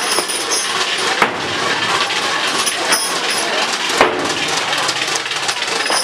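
Outdoor crowd noise with a dense clatter of small clicks, broken by two sharp cracks, about a second in and about four seconds in.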